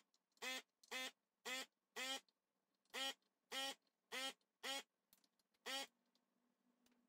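Hakko handheld desoldering gun's built-in vacuum pump buzzing in short pulses, about ten quick trigger pulls at roughly two a second with a brief pause partway. Each pulse sucks the melted solder off a stepper-motor pin on the instrument-cluster circuit board.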